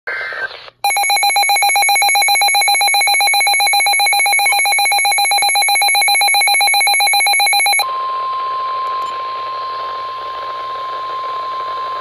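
Midland NOAA weather radio going into alert. First a loud, rapidly pulsing electronic alarm beep for about seven seconds. It then switches to the broadcast's single steady warning alarm tone over radio hiss, the signal that a warning message is about to be read.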